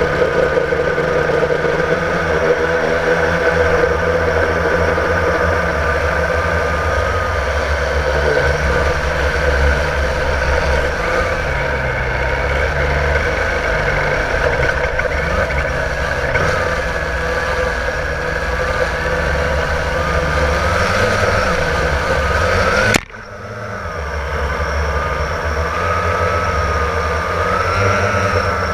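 Blade 350 QX quadcopter's electric motors and propellers whining as heard from its onboard GoPro, over a heavy wind rumble; the pitch wavers up and down as the throttle changes. The sound drops out sharply for a moment about three-quarters of the way through, then comes back.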